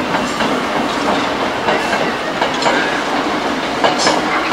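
A Hankyu electric train running past, its wheels clacking over the rail joints, with the chatter of a crowd of people behind it.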